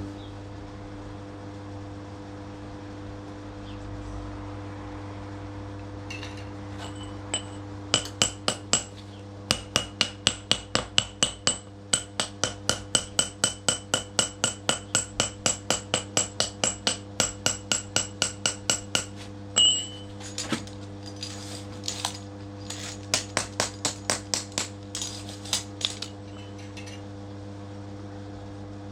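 Sharp metallic taps with a bright ringing tone, in a regular run of about four a second for roughly ten seconds, then scattered and irregular, over a steady low hum.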